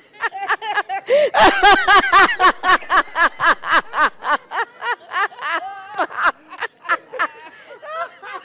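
A man laughing hard and uncontrollably in a rapid run of short laughs, several a second, loudest about a second and a half in.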